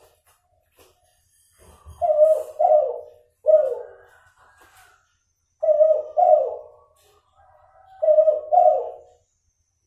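F2 hybrid derkuku dove (Kelantan derkuku crossed with a cuhu hen) cooing in repeated low phrases, mostly pairs of notes, with gaps of about a second or two between them. The breeder describes its voice as still nasal, with an inconsistent number of end notes.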